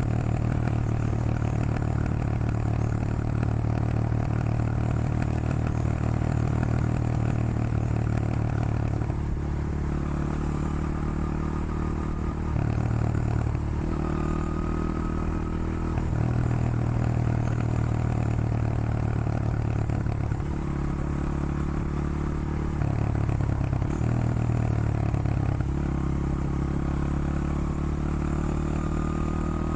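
Honda XR100 motard's single-cylinder four-stroke engine running under way, its pitch changing in steps every few seconds as the revs rise and fall.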